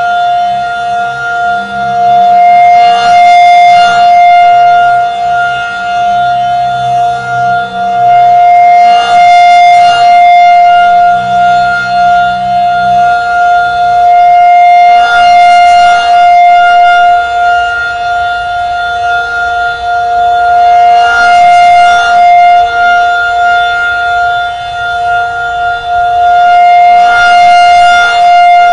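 Federal Signal 2001-SRN outdoor warning siren sounding one steady, high-pitched wail during a test. The pitch holds level while the loudness swells and fades about every six seconds as the rotating horn sweeps past.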